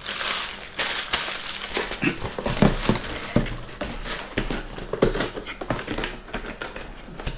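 A clear plastic packaging bag crinkling in the hands, then a cardboard figure box being handled on a table, with scattered taps and knocks.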